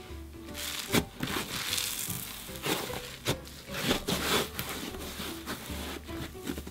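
Thick slime packed with glitter crackling and squishing as hands press and stretch it, in several sharp crackly bursts, over background music with a steady low bass.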